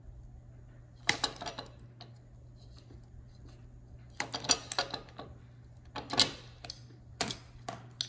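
Red-handled diagonal wire cutters snipping through the rubber-sheathed wiring harness cable of a Honda CBR600F4i ignition switch: several sharp snips and clicks, in small clusters spread over the few seconds.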